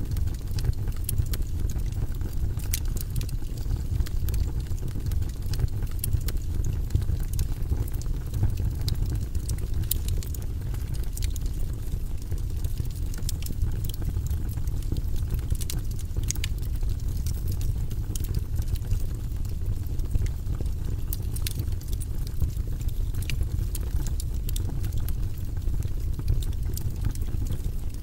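Wood burning in a fireplace: scattered sharp crackles and pops over a steady low rumble.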